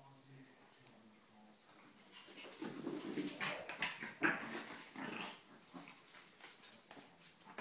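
A whippet puppy and a Maltese x Chihuahua play-fighting on a tile floor: a faint, irregular run of scuffling and clicking claws mixed with small dog whimpers. It starts about two seconds in and dies down after about five.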